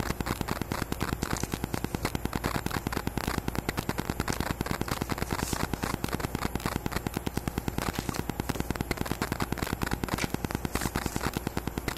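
Wifi interference from a GoPro camera picked up by its external microphone: a rapid, even train of clicks many times a second. Paper rustles faintly as spiral-bound course booklets are flipped through in a cardboard box.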